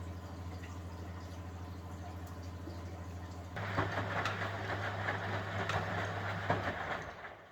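1971 Constructa Garant 491 washing machine in a boil wash: a steady motor hum with water sloshing in the drum. About three and a half seconds in it grows louder and noisier with a few sharp clicks, then dies away near the end as the drum stops turning.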